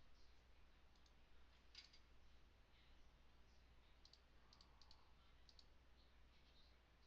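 Near silence with a few faint, short computer mouse clicks scattered through it, over a steady low hum.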